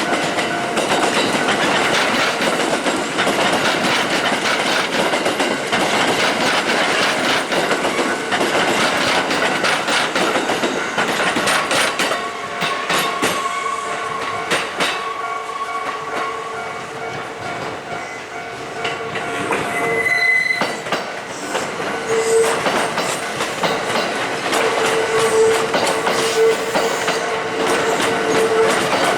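Kintetsu electric trains passing over a level crossing, wheels clattering over rail joints with some wheel squeal, and the level crossing's warning bell ringing steadily. The train noise eases a little past the middle and then builds again.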